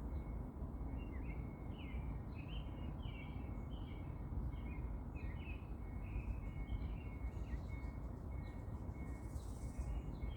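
Small songbirds chirping, many short quick calls in clusters, over a steady low rumble of background noise and a thin constant high tone.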